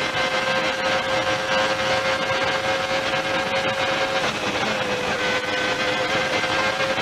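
Williams-Renault Formula 1 car's 3.5-litre Renault V10 heard from the onboard camera, running at high revs on a straight. The pitch drops suddenly about four seconds in, like an upshift, then climbs slowly again.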